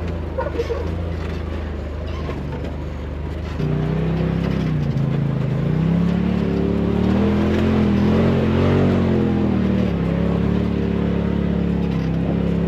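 Side-by-side UTV engine running under load. About three and a half seconds in it gets louder, then its pitch rises and falls as the throttle changes.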